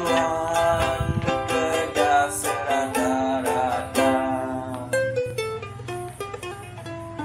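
Background music: an acoustic instrumental of quickly plucked strings, growing quieter over the last two seconds.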